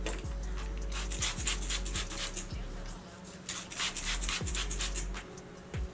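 Background music with a deep bass beat, under repeated short rubbing sounds of hands scrunching wet curly hair.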